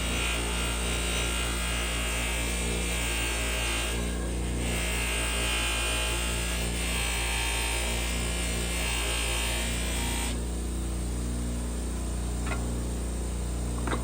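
A small electric motor running with a steady hum and hiss. The hiss eases off briefly about four seconds in and drops away after about ten seconds, and a couple of light clicks follow near the end.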